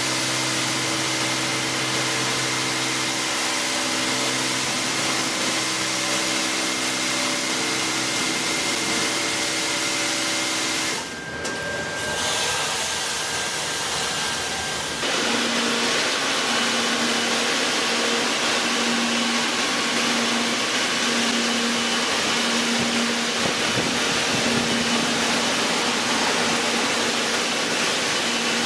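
LeisuWash touchless automatic car wash machine running: a loud steady hiss with a motor hum. About 11 seconds in the sound dips briefly and changes. From about 15 seconds on a hum pulsing roughly once a second runs under the hiss.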